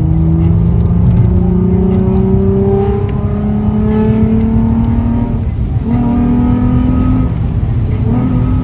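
Infiniti G35's VQ35DE V6 under hard acceleration, its note climbing steadily through a gear, dipping briefly about five and a half seconds in at a gear change, then climbing again, with a steady low road rumble underneath. The intake has a 5/16 plenum spacer fitted, which makes the engine pull harder and sound louder.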